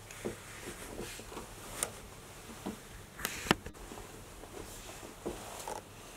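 Scattered soft taps and rustles of someone shifting about inside a small wooden hunting blind, with a sharper click about three and a half seconds in.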